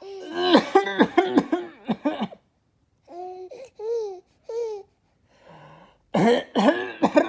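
A young child laughing in short, pitched bursts: a quick run of laughs, then three separate calls around the middle, then another run near the end.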